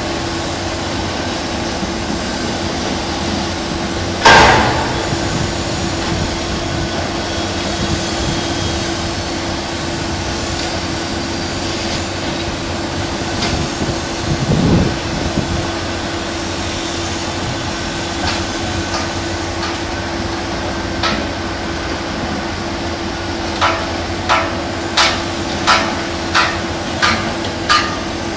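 Heavy construction machinery running with a steady droning hum, the rotary drilling rigs of a piling site. A loud sharp metallic bang comes about four seconds in and a dull thud midway through. Near the end there is a run of regular knocks, about three every two seconds.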